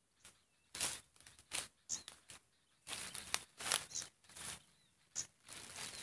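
Dry bamboo leaves crackling and rustling in short, irregular bursts, busier in the second half. A few brief high chirps of small birds sound over it, about two, five and six seconds in.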